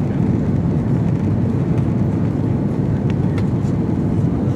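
Steady low rumble of an Airbus A330-300 airliner heard inside the passenger cabin: engine and airflow noise, even in level throughout.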